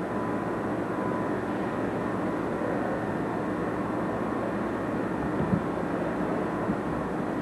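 A steady mechanical drone, with a couple of light knocks about five and a half and six and a half seconds in.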